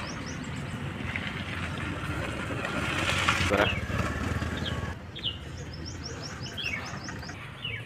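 Engine oil poured from a plastic jug through a funnel into an engine's oil filler, a steady pouring noise that swells about three seconds in. Birds chirp briefly in the background.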